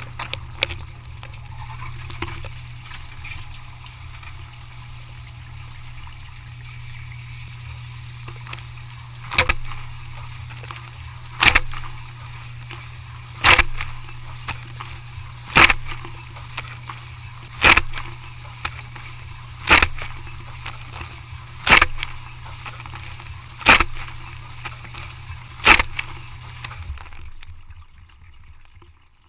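Dishwasher running: a steady motor hum under the hiss of water. From about nine seconds in, a sharp knock comes roughly every two seconds, nine times. The motor then shuts off near the end.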